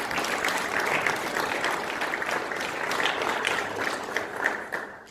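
Audience applauding, with steady clapping that fades out near the end.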